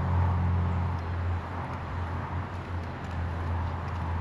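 Steady low mechanical hum under a broad, even rushing noise, with a few faint clicks.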